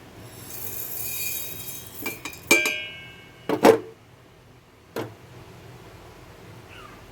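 Kitchen utensils being handled: a rattle of small items, then a few sharp knocks with a brief ring, a double knock, and a last click about five seconds in.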